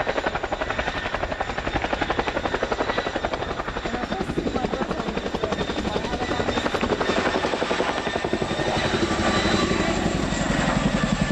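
Boeing Chinook HC2's tandem rotors beating in a fast, even chop over the steady whine of its twin Lycoming T55 turboshaft engines, as it taxis on its rear wheels and then lifts off. The low rotor beat grows fuller near the end.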